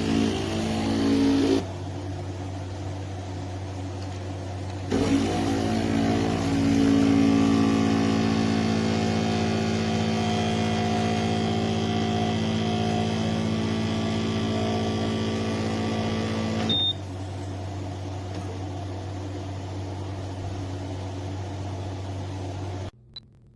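Neretva 15-bar espresso machine humming steadily as its pump runs, with a louder, fuller buzz for about the first second and a half and again from about five seconds in until about seventeen seconds; the hum cuts off shortly before the end.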